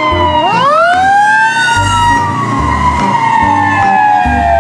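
Fire engine siren wailing. Its pitch sinks slowly, sweeps up sharply about half a second in, then sinks slowly again, over a low repeating bass beat.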